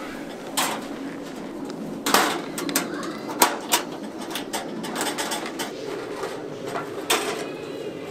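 Metal clanks and clicks of a Coleman two-burner camp stove being closed up and packed away: the grate and lid coming down and the latches snapping shut, with several sharp knocks.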